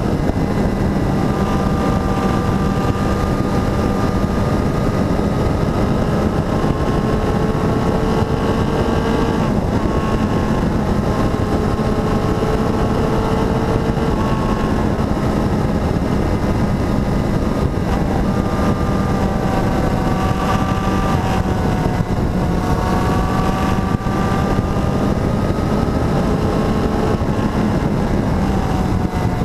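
Motorcycle engine running at speed on the road, with steady wind noise on the helmet- or bike-mounted camera's microphone. The engine note climbs slowly and drops back several times.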